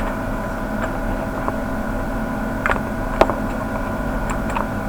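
Steady hum with several fixed tones, with two sharp clicks a little before and after three seconds in.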